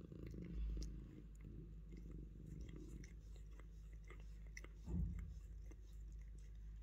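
Mother cat licking her sleeping newborn kitten: faint, irregular wet licking clicks and rasps of tongue on fur, with two soft low thumps about half a second and five seconds in.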